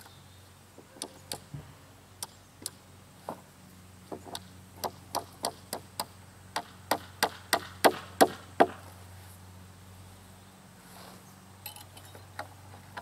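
Hammer striking weathered split-rail fence wood to knock out old nails: a run of sharp knocks that quickens to about three a second and grows louder, then stops about two-thirds of the way through.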